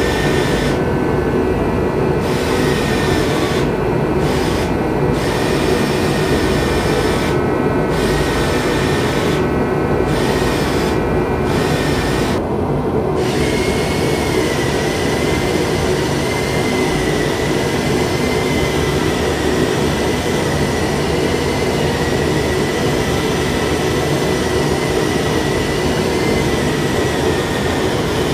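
Forge running with a steady, unbroken roar and a faint wavering high whine over it.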